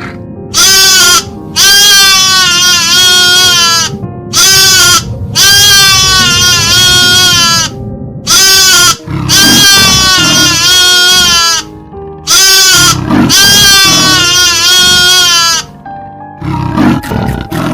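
An animal calling four times over background music, each time a short call then a long, wavering, high-pitched call.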